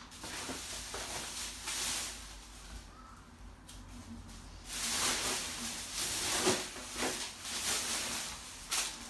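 Black plastic bin bag rustling and crinkling as rubbish is pushed into it, in irregular bursts that grow louder about halfway through.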